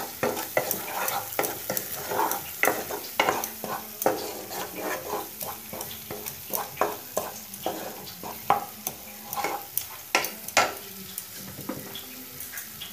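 Wooden spatula stirring and scraping onion, ginger and garlic paste with ground spices as it fries in oil in a non-stick pan. Quick scraping strokes run over a steady sizzle, and the strokes stop about eleven seconds in, leaving the sizzle. This is the masala being fried after turmeric, coriander and cumin powder were added.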